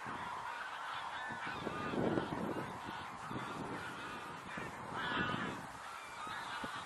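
A flock of geese honking and calling over one another in a continuous overlapping chatter, louder about two seconds in and again about five seconds in.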